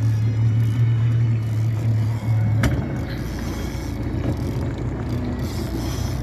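Boat engine idling with a steady low hum; about two and a half seconds in there is a sharp click and the engine note drops lower.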